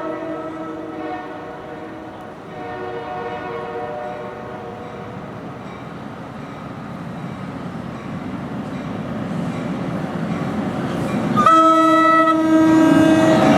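Train horn sounding a chord of several notes in blasts: one fading out about a second in, another from about two and a half to five seconds, then a loud blast about eleven seconds in as the rumble of an approaching train grows louder.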